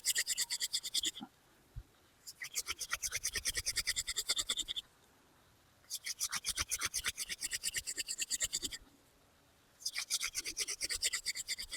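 Wooden hand drill spindle spun rapidly back and forth between the palms on a hearth board, squeaking with each stroke at about eight strokes a second. It comes in four runs of one to three seconds with short silent pauses between. The squeaking is the friction that heats the board and spindle to turn the piled dust into an ember.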